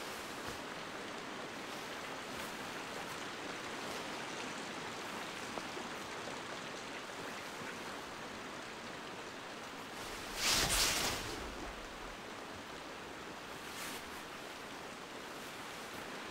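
Steady background hiss of ambient noise on a film soundtrack, with one brief louder whoosh about ten seconds in.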